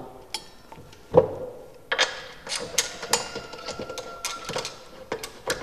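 Metal axle nut being spun by hand onto the threaded rear wheel axle of an electric scooter: a dull knock about a second in, then a run of irregular small metallic clicks and clinks.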